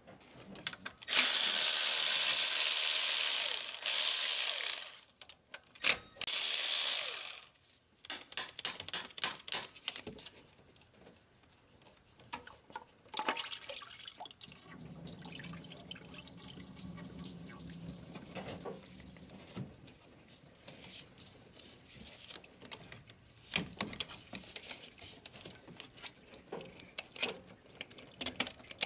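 Engine repair work: two loud stretches of steady rushing noise near the start, one about four seconds and one about a second and a half long, followed by quieter scattered clicks and clinks of tools on metal brackets and fittings.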